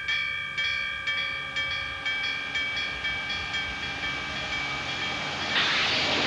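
A Japanese railway level-crossing alarm rings in repeated strokes, about two a second. About five and a half seconds in, the rushing noise of a passing train rises over it.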